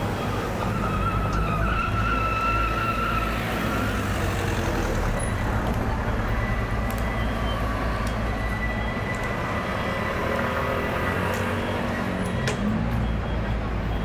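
City street traffic: car and motorbike engines running and passing over a steady low rumble. A high, wavering squeal runs for a couple of seconds about a second in.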